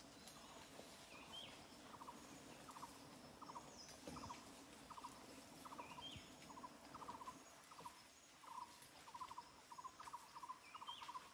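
Faint forest ambience: a small wild animal repeatedly gives short, rapid pulsed calls, a couple of times a second and more often near the end, with a brief high rising chirp now and then.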